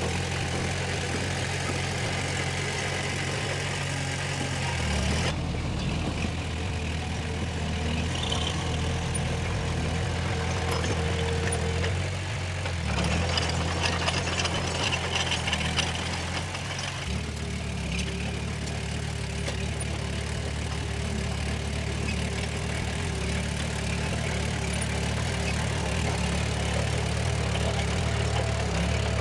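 Heavy diesel earth-moving machinery running steadily; the engine note changes abruptly a few times. Rattling clatter with louder knocks joins in for a few seconds around the middle.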